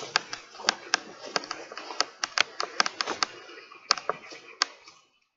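Handling noise from a handheld camera: a rapid, irregular run of sharp clicks and taps over a rustling hiss, stopping about five seconds in.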